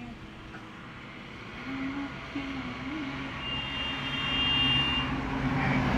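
A motor vehicle engine running, its steady hum growing louder toward the end, with a brief high steady tone about three and a half seconds in.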